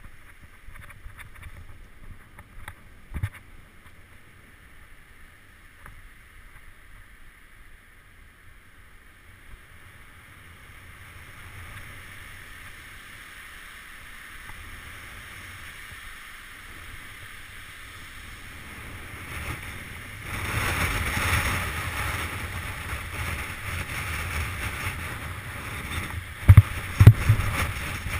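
Mountain bike riding down a trail: tyres rumbling over gravel and wooden boardwalk, with wind buffeting the camera microphone. It grows much louder about two-thirds of the way through as the bike picks up speed, and a few sharp knocks from bumps come near the end.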